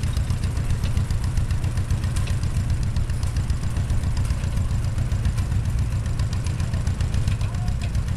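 Small antique John Deere tractor's engine running steadily at low speed with a quick, even beat as the tractor drives slowly.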